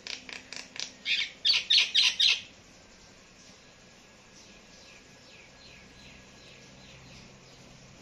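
Common myna calling: a quick run of about ten harsh notes that grow louder, the last four loudest, ending about two and a half seconds in. Fainter, softer notes follow from about four seconds in.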